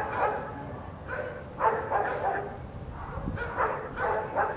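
A dog barking over and over, in short runs of two or three barks.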